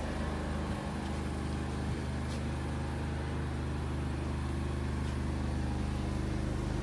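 Super-silent generator running steadily, a low, even engine hum.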